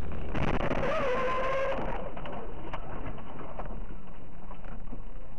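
Steady road and engine noise inside a car driving on a highway. From about half a second in, a short held tone lasts a little over a second.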